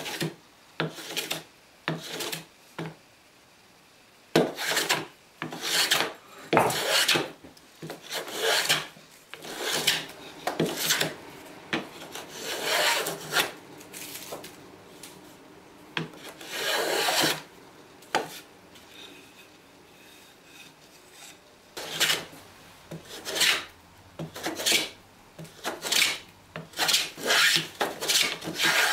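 Metal bench plane cutting shavings from a wooden board: a run of push strokes, each a short rasping swish, with a pause of a few seconds about two-thirds of the way through.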